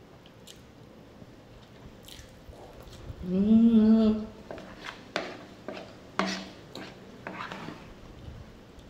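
A woman hums a drawn-out, wavering "mmm" of enjoyment with her mouth full, about three seconds in, then chews a mouthful of rice-and-bean scramble with wet mouth smacks and several sharp clicks, with a brief second hum about six seconds in.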